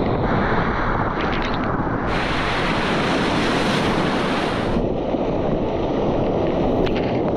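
Whitewater rapids rushing loud and steady, with a brighter hiss of splashing spray from about two to five seconds in; wind buffets the microphone.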